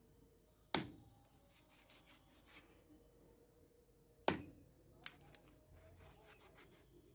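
Two heavy chops of a long-bladed knife through raw chicken into a wooden chopping block, one about a second in and another about three and a half seconds later. Lighter taps and clicks of the blade and the handled pieces come between.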